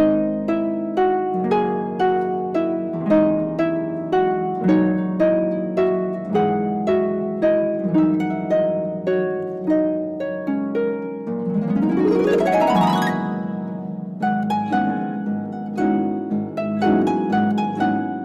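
Solo harp playing a steady run of plucked notes, each ringing and fading. About twelve seconds in, a quick rising glissando sweeps up the strings, and the plucked notes resume.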